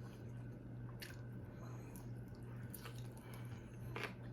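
A person chewing food with soft, faint wet mouth clicks, over a steady low hum.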